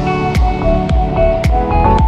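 Background music with a steady beat, a deep thump about twice a second under a held melody.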